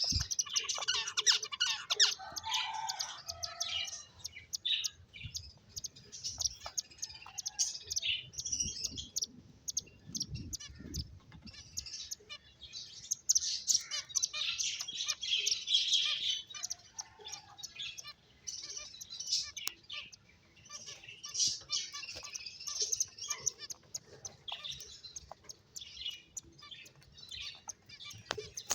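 Several pet finches chirping in quick, overlapping short calls, with scattered sharp clicks among them.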